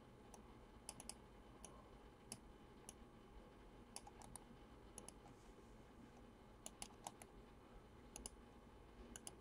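Faint, irregular clicking of a computer mouse and keyboard, some clicks in quick pairs, over a near-silent room.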